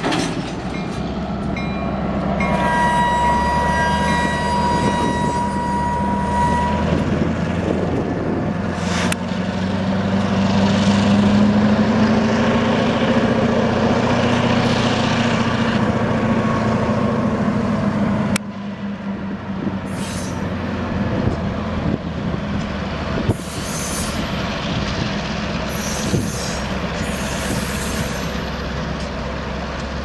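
Two EMD GP38-2 diesel switching locomotives with 16-cylinder two-stroke engines running under load as they move a cut of freight cars, with a steady low engine drone and the clatter of the cars. A high wheel squeal sounds a few seconds in. Near the middle the engine note swells, then drops off abruptly, followed by a few short clanks.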